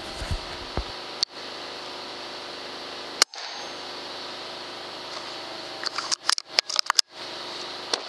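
Sharp cracks from a Daystate Wolverine R .22 pre-charged air rifle over a steady hiss. One crack comes about a second in and a louder one just past three seconds, followed by a quick run of cracks and clicks between six and seven seconds.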